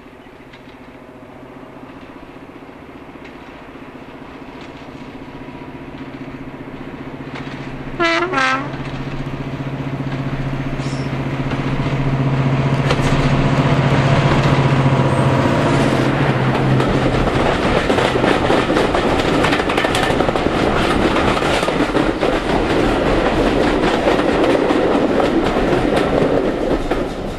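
Class 55 Deltic diesel locomotive approaching with its two Napier Deltic two-stroke engines running steadily and growing louder, sounding its horn in two short blasts about eight seconds in. It then passes close by and the coaches behind it clatter over the track, and the sound drops away near the end.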